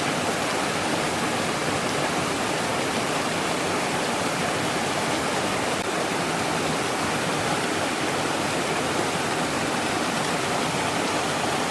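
Double waterfall on a stream: a steady, even rush of falling water.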